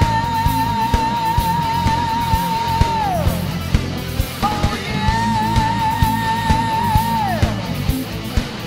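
Heavy metal song: two long held high notes with vibrato, each sliding down at the end, over guitars and a steady drum beat.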